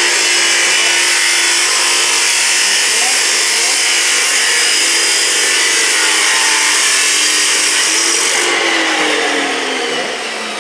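Abrasive metal chop saw cutting through two steel studs: the motor runs at a steady pitch under a loud, shrill grinding hiss of the cut-off wheel in the metal. About eight seconds in the cut finishes, the grinding stops, and the motor winds down with falling pitch.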